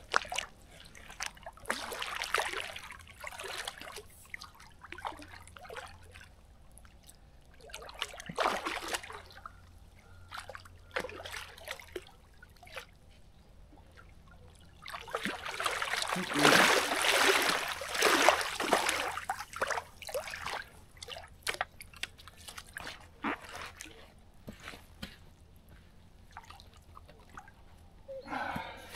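Water splashing and sloshing in irregular bouts as a hooked carp thrashes at the surface while being played in, the longest and loudest bout a little past halfway.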